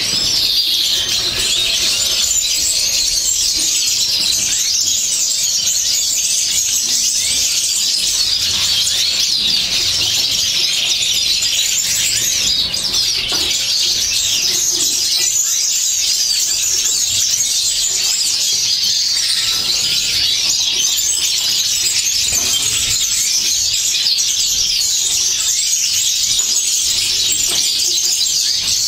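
Dense, continuous chorus of many small aviary finches chirping and twittering at once, a steady high-pitched wall of overlapping calls and song with no pause.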